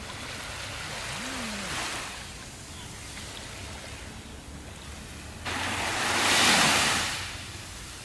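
Small sea waves washing up on a sandy beach. A gentle wash fades about two seconds in, then a louder wave breaks suddenly about five and a half seconds in, swells and fades out over about two seconds.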